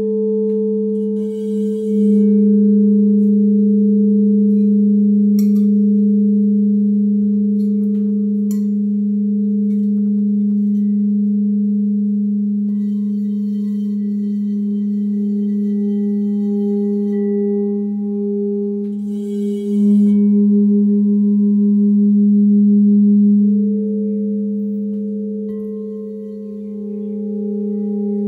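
Pink aura Crystal Tones alchemy crystal singing bowl with a frosted rim, rimmed with a covered mallet, singing a steady low tone with a higher tone ringing above it. The sound swells about two seconds in and again around twenty seconds, and a further higher tone joins about three-quarters of the way through.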